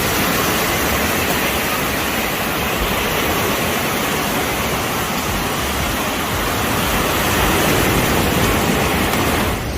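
Steady rushing noise of beach surf, with wind rumbling on the microphone.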